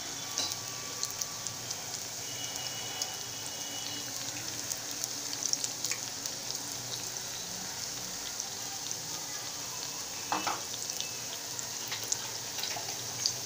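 Raw banana slices in chickpea-flour batter deep-frying in hot oil on high flame: a steady sizzle full of small crackles and pops.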